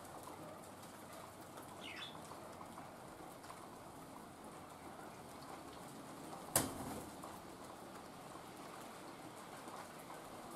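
Steady rain patter with one sharp knock about two-thirds of the way through.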